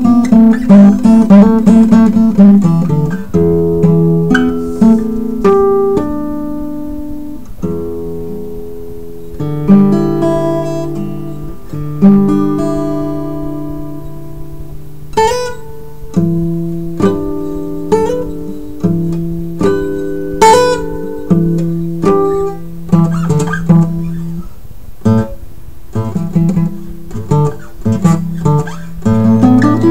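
Acoustic guitar played fingerstyle. Quick picked patterns sound at the start and again near the end, with slower single notes and chords left ringing in between.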